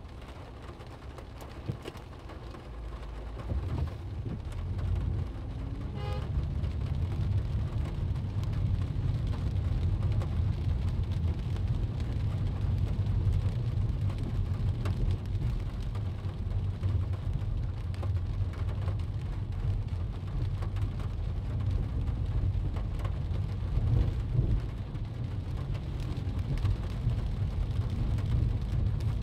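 Rain pattering on a car's windshield and body, heard from inside the cabin over steady tyre and road rumble. The low rumble grows louder about three to four seconds in, then holds steady.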